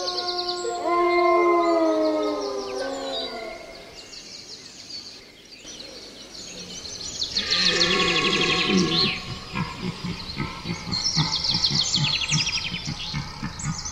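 A dog howls in long, falling notes for the first three seconds or so. After a quieter stretch, birds sing in rapid high trills, with a rhythmic low rustling underneath.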